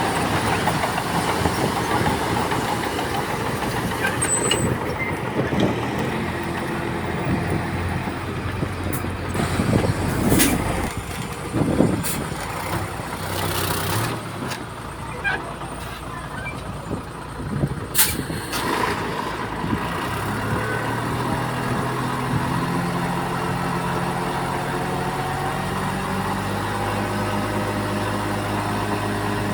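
Heavy diesel earthmoving machinery working: engines running under noise, with sharp clanks and knocks through the middle, then settling into a steady engine drone with a clear pitch from about twenty seconds in.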